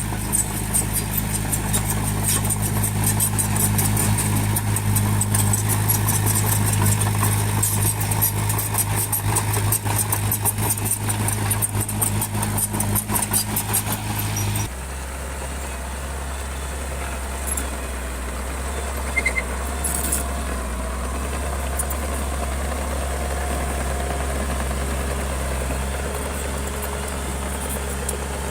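Diesel engine of heavy earthmoving machinery running steadily, with a rapid clatter over it. About halfway through the sound switches abruptly to a lower, quieter steady engine drone.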